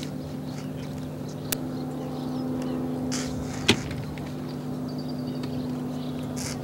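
Steady low mechanical hum, with a light click about one and a half seconds in and a sharp knock, the loudest sound, about three and a half seconds in, as the cabin door of a small helicopter is worked and shut.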